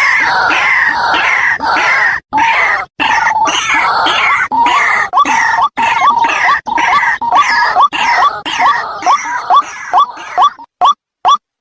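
White-breasted waterhen calls: a loud, dense chorus of repeated harsh, rising call notes, thinning out near the end into single notes about three a second. It is recorded lure-call audio for attracting the birds.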